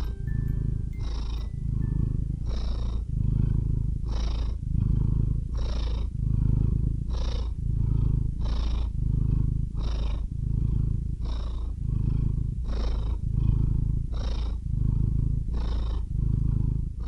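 Cat purring in a steady rhythm, each breath in and out heard as a rise and fall about every one and a half seconds.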